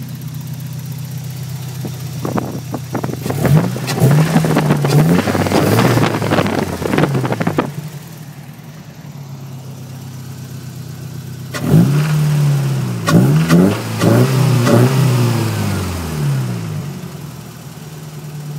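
1994 Toyota pickup engine heard at its aftermarket cold air intake, idling and then revved twice, each time rising in pitch in a few blips and dropping back to idle.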